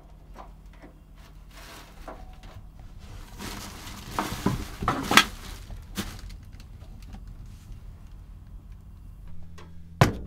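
Portable propane radiant heater being lit by its control knob: a few sharp igniter clicks over a soft hiss about four to five seconds in. Near the end, one hard knock as a plastic bowl is set down on a counter.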